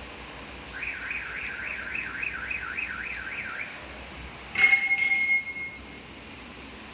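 A warbling alarm-like tone that rises and falls about three times a second for nearly three seconds. Then a sharp strike, the loudest sound, followed by a ringing tone that lasts about a second.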